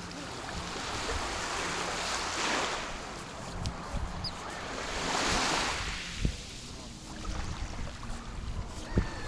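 Sea waves breaking and washing up on the shore, two surges of surf about two and a half and five and a half seconds in, with wind rumbling on the microphone.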